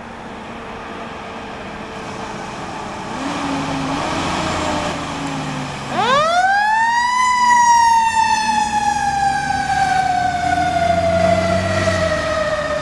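Fire engine approaching with its diesel engine running and growing louder. About six seconds in, its mechanical siren winds up sharply to a high wail, then slowly winds down in pitch as the truck goes by.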